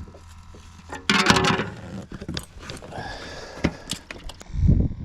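Handling noise of fishing gear in a boat: a loud rattle and clatter about a second in, then scattered sharp clicks and knocks, with dull thumps near the end.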